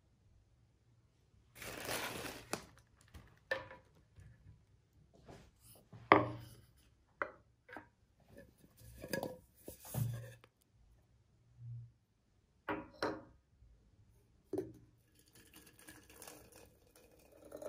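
Scattered household handling sounds in a small room: a short rustle, then knocks and clinks of objects such as dishes being picked up and set down.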